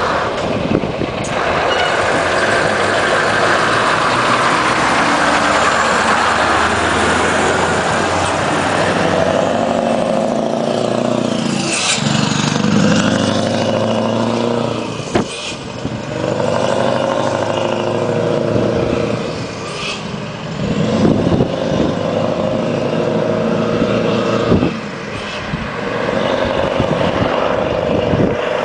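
Two loaded Scania V8 trucks on open exhausts pulling away and accelerating past. The engine note drops and climbs again several times as they shift up through the gears.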